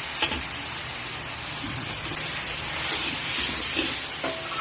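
Ground pork sizzling in a hot pan as it is stir-fried after a splash of pork stock: a steady frying hiss with an occasional sharp click of the spatula.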